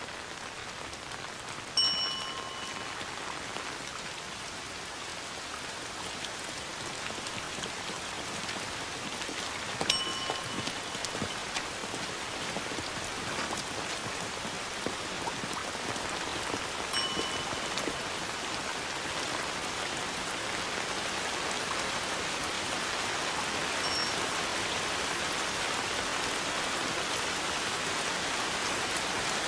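Steady rain falling on umbrellas and a wet street, growing slightly louder. A short ringing tone sounds four times, about seven seconds apart, the first about two seconds in.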